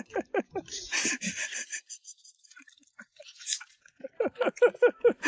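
Close-miked eating sounds: quick chewing and mouth smacks at about five a second, in two spells with a quieter gap in the middle.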